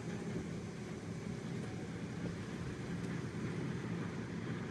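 John Deere 9660 STS combine harvesting corn with its 608C corn head, its six-cylinder diesel running together with a John Deere 7215R tractor pulling a grain cart alongside: a steady low drone of farm machinery.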